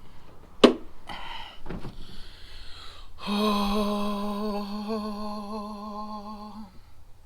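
A sharp click about half a second in, then some brief rustling. A man then hums one held note for about three and a half seconds.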